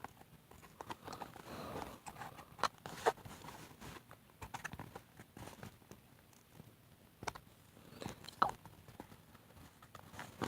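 Faint handling of a cardboard toy box and its packaging: scattered light taps, clicks and rustles as it is worked open by hand.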